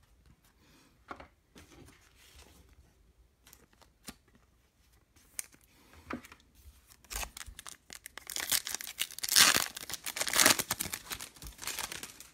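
A foil trading-card pack is torn open and its wrapper crinkles, loud and crackly through the second half. Before that come light taps and slides of cards being handled.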